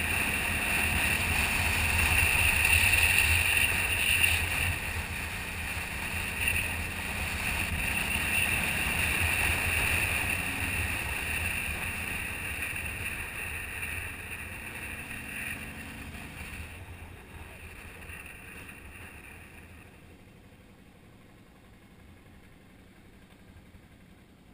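Motorcycle engine running at road speed with wind rushing over the bike-mounted camera, a steady rumble and hiss. It fades away over the second half to a faint hiss.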